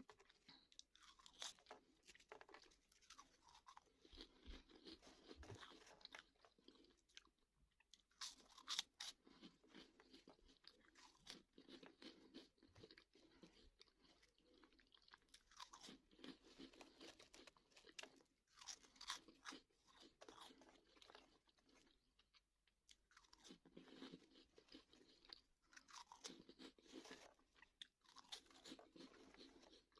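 Quiet, close-up crunching and chewing of crunchy Bozo snack balls, coming in bouts of crackly bites with short pauses between and a few sharper, louder crunches.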